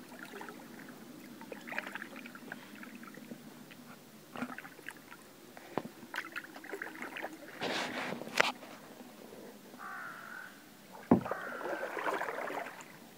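Canoe paddling: a paddle dipping and splashing in the water in irregular strokes, with a few sharp knocks. The loudest knock comes about eleven seconds in.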